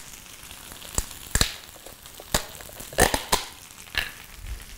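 Plastic butter tub being opened and handled: a handful of sharp crinkling clicks and crackles from the thin plastic lid and tub.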